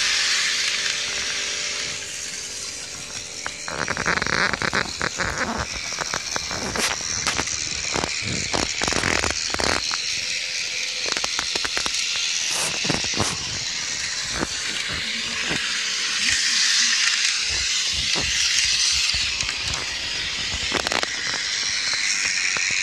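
N-gauge model trains running on the layout's track, a B Train Shorty HSOR-100 railcar and a freight train: the steady whine of small electric motors and wheels on rails, with many irregular clicks.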